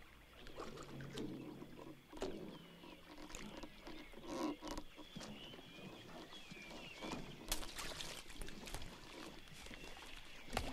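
Jungle ambience: birds chirping and calling over a soft background, with scattered knocks and light splashes of water.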